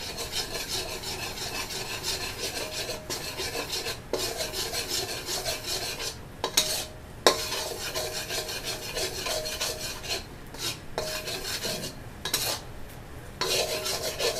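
Metal spatula scraping and stirring around a bare wok in continuous rasping strokes, working coconut sugar and oil as they cook down. A sharper knock of the spatula on the wok about halfway through.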